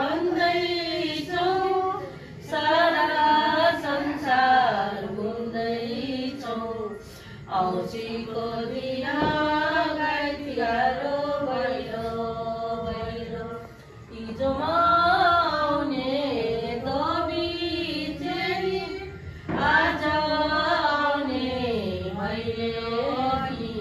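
Group of women singing a Bhailo, the Nepali Tihar folk song, in phrases with brief breaks between them.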